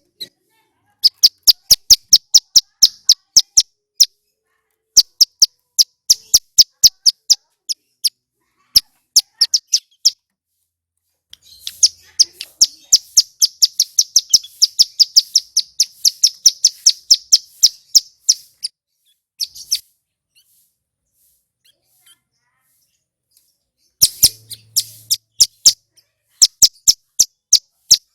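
Male ciblek gunung singing loud and clear in bouts of rapid, sharp, high chirps. A long fast run comes in the middle, and after a few seconds' pause two short runs follow near the end.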